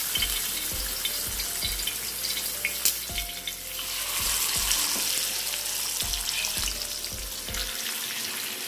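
Masala-coated whole mackerel shallow-frying in hot sunflower oil: a steady sizzle with sharp crackles and spits of oil.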